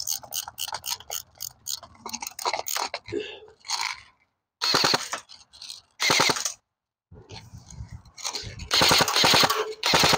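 Airsoft high-capacity magazines being wound by their thumb wheels, a run of ratchet clicks, then airsoft guns firing on full auto: a short burst about five seconds in, another about six seconds in, and a longer burst from about nine seconds in.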